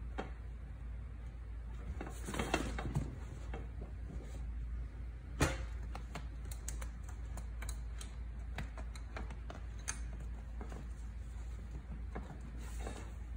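Kittens playing with a plastic ball-track toy and a nylon play tunnel: irregular light clicks, taps and rustles, with one sharper click about five seconds in.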